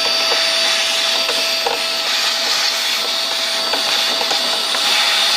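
Vacuum cleaner running steadily with a constant whine, its hose sucking dirt out of a car's air filter box, with a few light knocks.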